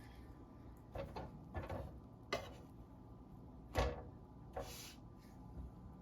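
About five short knocks and clicks, like kitchen utensils being handled, the loudest almost four seconds in, the last followed by a brief hiss.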